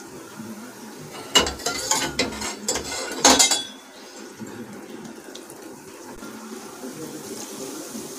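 Metal spoon knocking and scraping against a metal kadhai while melted ghee is poured into gram-flour Mysore pak batter, with several clanks in the first few seconds. The ghee-soaked batter then sizzles softly and steadily.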